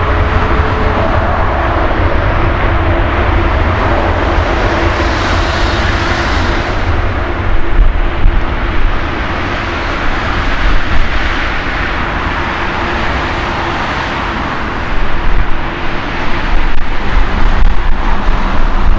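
Boeing 787 Dreamliner's General Electric GEnx turbofans at takeoff thrust during the takeoff roll: a loud, continuous jet roar with a deep rumble and a faint steady hum in the first half. From about the middle on, the rumble swells and fades in waves as the airliner accelerates away down the runway.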